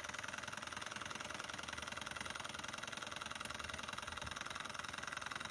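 Bohm HB14 twin-cylinder Stirling model engine running steadily, its many moving parts making a rapid, even mechanical clatter.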